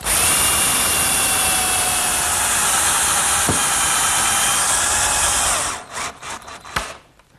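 Power drill running under load as its bit bores a screw hole into a hardwood-and-plywood block. It gives a steady motor whine for about five and a half seconds, then stops, and a few light knocks follow.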